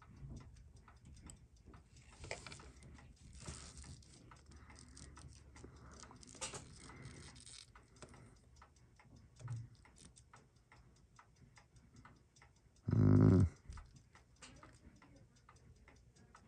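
Steady, rapid mechanical ticking of a clock or watch, several ticks a second, at a moderate level. About thirteen seconds in, a person gives one short hum.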